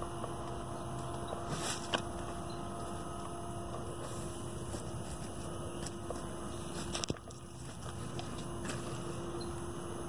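A steady hum holding one constant tone over an even background noise, with faint ticks and a sharp click about seven seconds in.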